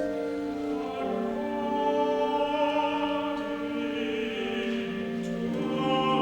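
Choir singing slow, sustained chords that shift every second or so.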